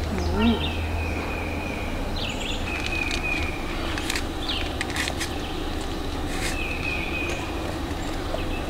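A bird whistling a short, slightly falling note about every three seconds over a steady low rumble, with a few light clicks around the middle and a brief voice sound at the very start.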